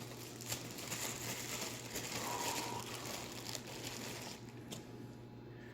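Plastic food packaging crinkling and rustling as it is handled, with scattered small clicks.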